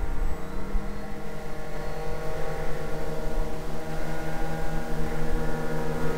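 Small radio-control model engine running steadily, a high-pitched drone that holds nearly the same pitch throughout.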